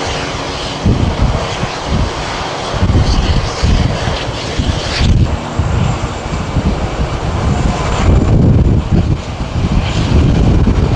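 Airbus A340-300's four CFM56 jet engines running at low power on the ground, a continuous jet noise over a low rumble that rises and falls.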